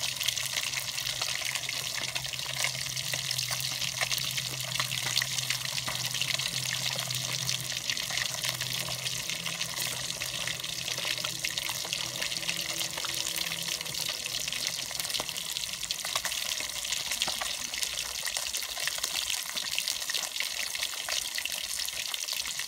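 Water running steadily from the tap of a large plastic water jug into a basin, splashing as leafy greens are washed in it.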